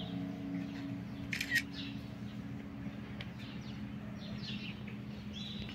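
Church bell's lingering low hum dying away after the ringing, with sparse bird chirps. There is a short scraping noise about a second and a half in.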